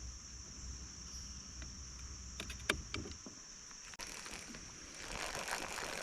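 Small sharp knocks and clicks from gear in a fishing boat on the water, over a steady high-pitched insect drone. A low rumble drops away about halfway through, and a hiss swells near the end.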